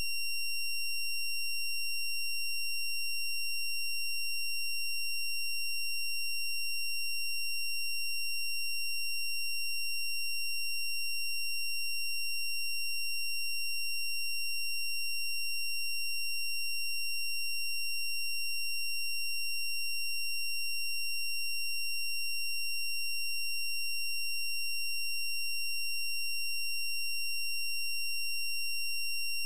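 A continuous high-pitched electronic tone, held at one pitch and level without a break, with fainter overtones above it.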